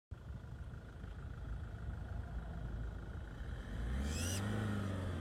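A vehicle engine running with a low rumble, growing louder about four seconds in, when a brief high rising squeal sounds.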